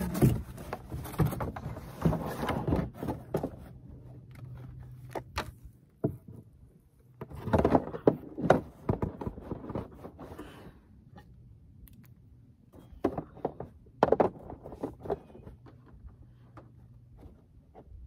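Plastic packaging and a cardboard box being handled: irregular bursts of rustling and crinkling with sharp knocks, in three or four clusters separated by quieter stretches.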